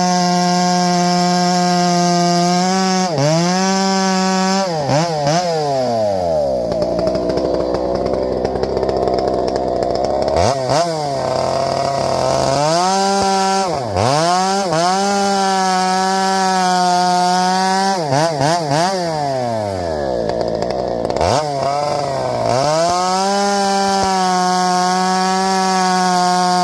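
Farmertec G395XP two-stroke chainsaw revving at a steady high pitch with no load. Twice it drops through a few quick throttle blips to a low idle for several seconds, then climbs back up to full revs.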